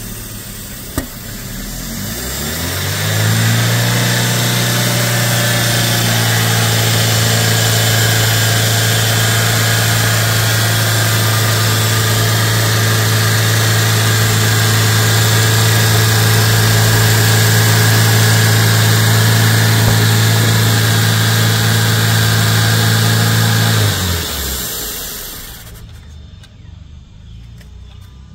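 2008 Chevrolet Spark engine running untouched. About two seconds in, the revs climb on their own to a high, steady idle with a hissing over it, and near the end it is switched off and winds down. The owner takes the racing idle and the hiss near the intake manifold for an air (vacuum) leak after cleaning the EGR valve.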